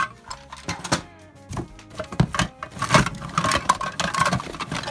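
A hand rummaging through a cardboard box of old toys and tins: irregular clattering and knocking as the objects shift against each other and the cardboard, busiest in the second half.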